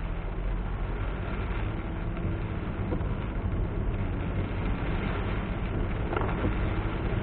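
Car driving in heavy rain, heard from inside the car: a steady low rumble of engine and road with the hiss of rain and wet tyres.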